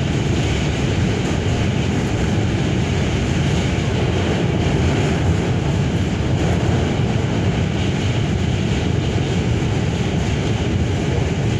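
R46 New York City subway car running across the steel Manhattan Bridge, heard from inside the car: a loud, steady rumble of wheels on rail.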